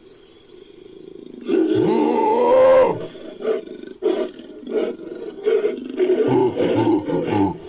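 Made-up creature roar sound effect: quiet at first, then about a second and a half in a long pitched roar that rises and then falls, followed by a string of short, choppy growls and grunts.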